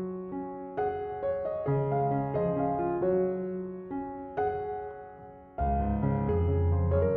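Background instrumental music of gently struck keyboard notes, each fading away. After a short dip, a fuller, louder passage with bass comes in about five and a half seconds in.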